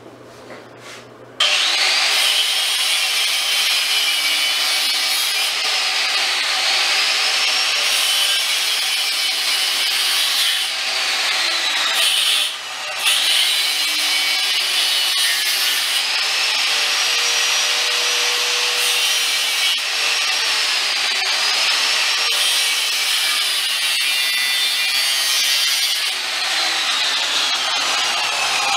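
Angle grinder cutting through expanded metal mesh made of quarter-inch rod. It starts about a second and a half in and runs steadily, its pitch wavering up and down as the disc bites into the rods, with a brief drop near the middle.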